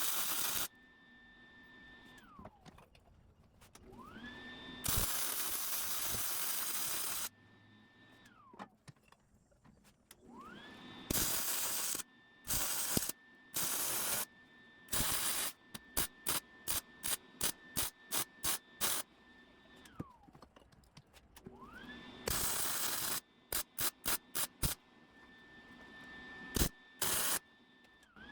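Electric welder arcing in bursts of crackling hiss: several one-to-two-second weld runs, and in the middle a quick series of short tack pulses, about three a second. Between the welds a thin high whine rises, holds and dies away.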